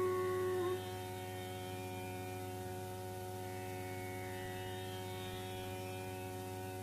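A bansuri flute's long held note ends under a second in, leaving a steady tanpura drone of many even overtones, with faint shimmering glides higher up.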